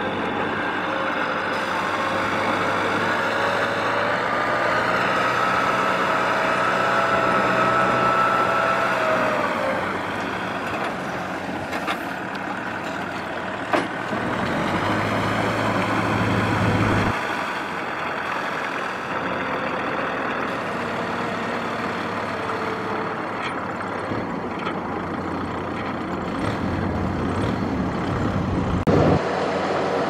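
Kubota tractor's diesel engine running under load as it drags a trailer through a muddy rice field. Its note rises slowly for several seconds, then drops back.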